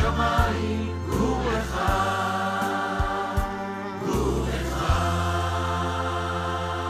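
Mixed choir singing in harmony into microphones over accompaniment with held bass notes. After about five seconds they settle on one long held chord.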